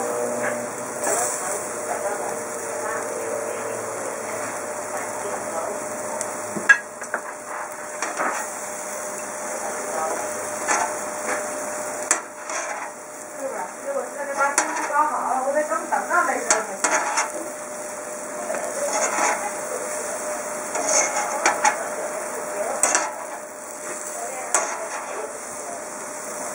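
Steel tongs and a knife clinking and scraping on a barbecue hotplate, in scattered strokes, over a steady sizzle of beef cooking.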